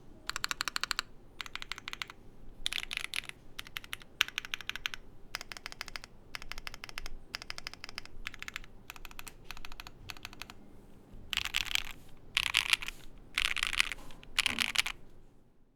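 Typing on a custom mechanical keyboard with lubed Moyu Black linear switches on a polycarbonate plate, in short bursts of rapid keystrokes with brief pauses between. The last few bursts are louder, and the typing stops just before the end.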